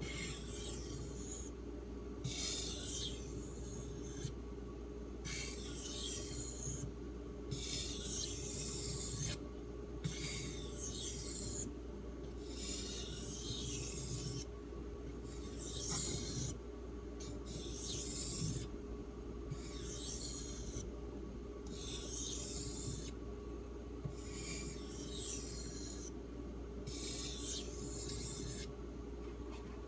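Knife blade of D2 steel drawn in repeated edge-trailing stropping strokes across a 3000-grit Arkansas water stone, which is drying out a little: a scraping hiss on each stroke. There are about a dozen strokes, each about one and a half seconds long, with short pauses between them.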